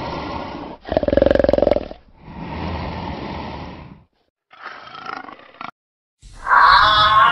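Big cat growling in a series of rasping calls with short pauses between them, the second call, about a second in, the loudest. Near the end a different, louder sound with several steady tones starts.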